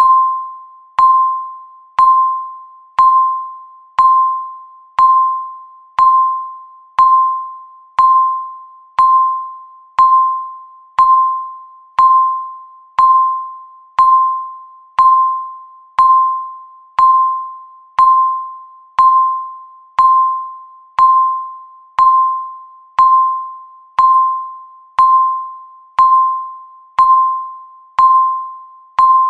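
Countdown timer beep sounding once a second: a short tone at about 1 kHz with a click at its start, fading quickly, repeated evenly throughout.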